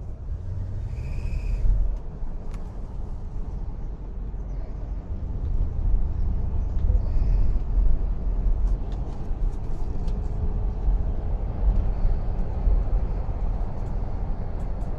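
Ford LTD with a steady low rumble, over which a high-pitched squeak sounds twice: about a second in and, fainter, about seven seconds in.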